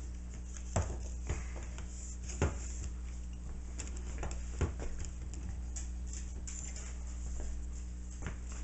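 Handling noise from a small aluminium-and-plastic camera tripod: a few scattered light clicks and knocks as it is adjusted and set down on a countertop, over a steady low hum.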